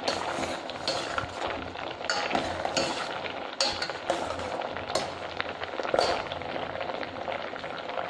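A ladle stirs soft-boiled black chickpeas in a steel saucepan, scraping and knocking against the pot every second or so over the steady bubbling of the boiling water.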